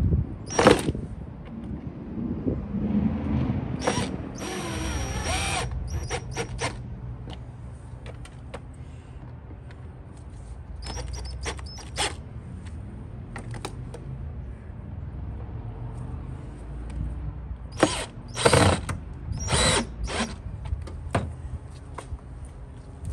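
Cordless drill-driver with a fresh battery pack: clicks and clacks as the pack is handled and snapped in. The motor runs for about a second and a half a few seconds in, then gives several short bursts later on.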